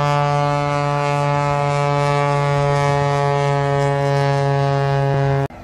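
A loud, steady horn-like drone on one low pitch with many overtones. It holds without change and cuts off abruptly near the end.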